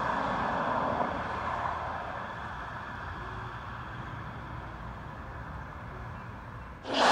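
Police car driving away, its road noise fading into street ambience. Music cuts in suddenly near the end.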